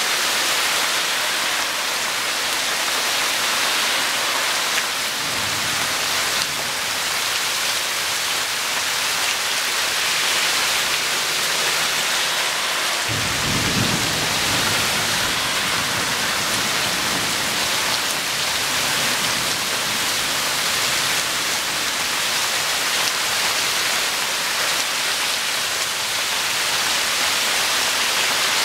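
Rain falling steadily during a thunderstorm. A roll of thunder starts suddenly about halfway through and rumbles low for several seconds, after a fainter rumble earlier.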